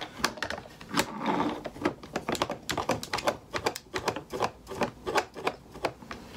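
Irregular run of light clicks and taps, several a second, from a makeup brush and long fingernails knocking against a small palette and brush handle.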